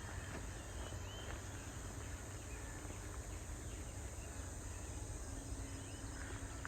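A steady, high-pitched insect drone in woodland, with a low rumble underneath and a few faint chirps about a second in.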